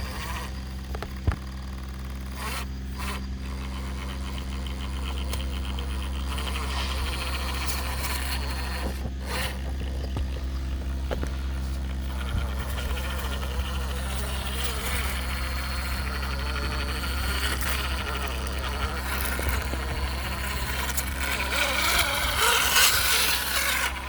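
Brushless electric motor and geared drivetrain of an MN82 RC crawler truck whining as it crawls over rocks. The whine rises and falls with the throttle and gets louder near the end.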